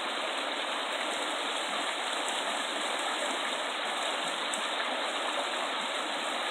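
Shallow, rocky river rushing over stones in riffles: a steady wash of water noise.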